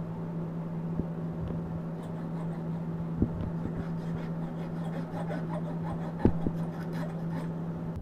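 A steady low hum, with a few sharp clicks, the loudest about three seconds in and just past six seconds.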